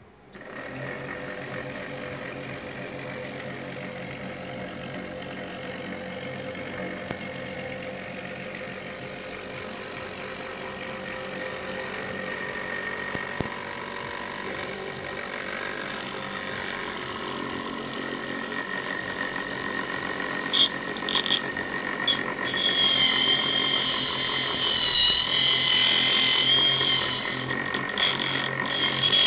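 Universal motor rewired as a pulse motor, fed by an electronic switching board, starting about half a second in and running with a steady whine of several tones. From about two-thirds through, sharp clicks and a louder, higher whine join in while a hand is held against the spinning rotor.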